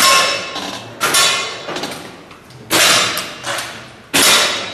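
Break-barrel air rifles firing: four sharp shots at uneven intervals, each with a short echo fading in a large hall.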